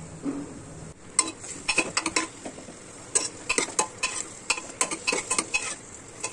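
Metal spoon stirring chopped tomatoes and onions in a pressure cooker, clinking and scraping against the pot's metal sides many times over, with a faint sizzle of the vegetables frying in oil.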